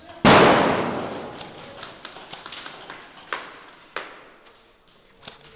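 A sudden loud bang about a quarter second in, ringing out and fading over about two seconds, followed by a few separate sharp clicks or knocks.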